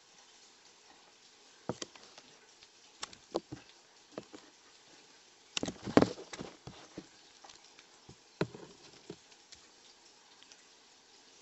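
African bullfrog chomping on nightcrawlers: a scattering of sharp clicks and knocks as its jaws snap shut on the worms. The busiest and loudest cluster comes about halfway through.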